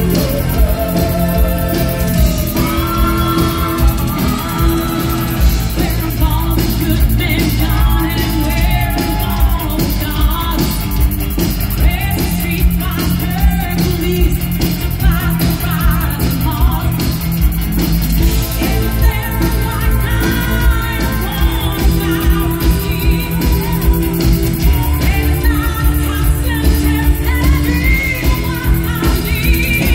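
Live rock band playing through the stage PA, a woman singing lead over drums and bass.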